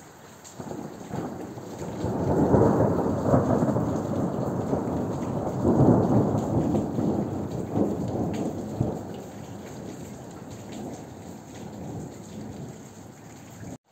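Rolling thunder building about half a second in, peaking twice, then slowly dying away, over steady rain. It cuts off abruptly near the end.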